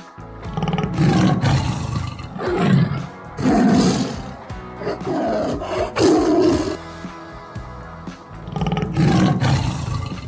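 Tiger roaring and snarling in repeated loud bursts, about six of them, over quiet background music.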